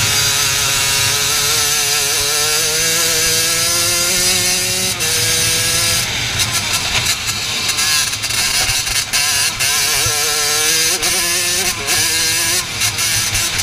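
Racing kart engine heard from onboard at speed, its pitch climbing steadily, dropping abruptly about five seconds in, then climbing again and dropping twice near the end.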